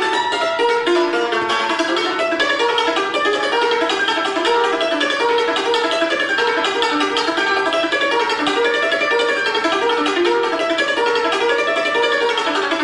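Concert cimbalom (Romanian țambal) played solo with two hammers: a fast, unbroken run of struck notes on ringing metal strings.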